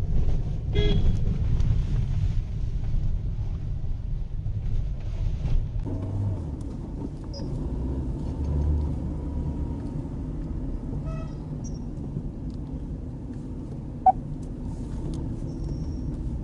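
A car driving along a road, with a steady low rumble of engine and tyres. There is one short sharp click near the end.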